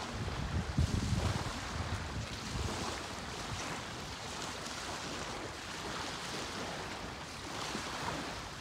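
Wind on the microphone over the steady wash of the sea against a rocky shore, gusting hardest in the first second or two.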